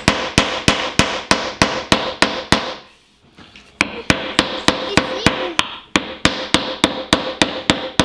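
Small hammer striking a dried black walnut on a plastic cutting board in quick, even blows, about three a second, with a pause of about a second around three seconds in. The thick, very hard shell holds without cracking.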